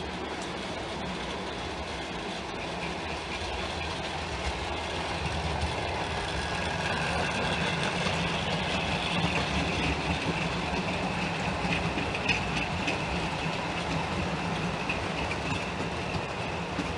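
Model freight train rolling along the track: a steady whirr of wheels on rail and the locomotive's motor, with a faint high whine. It grows a little louder over the first several seconds as the train comes near, then holds steady.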